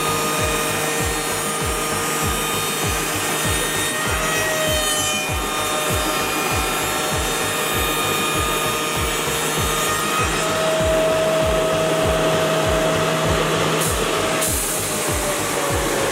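Woodworking milling machine for door and window frames running and cutting wood: a steady, dense cutting noise with a few steady whining tones over an even low pulsing.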